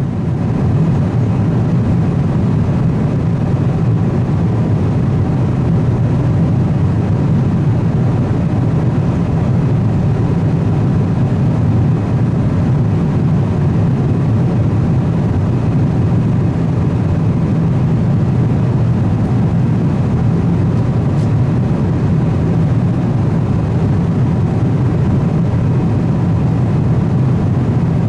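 Steady cabin noise of a Boeing 777-200ER in cruise: the even, low-pitched rush of engines and airflow heard from an economy seat, unchanging throughout.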